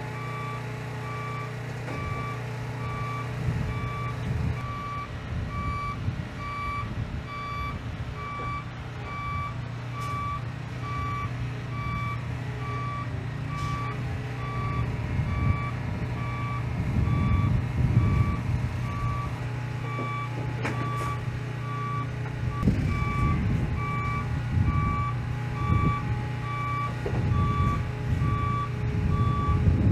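Reversing alarm on the heavy-haul truck and trailer moving a KC-135 fuselage, giving evenly spaced beeps at one pitch over the steady low running of the truck's diesel engine, which swells louder now and then in the second half.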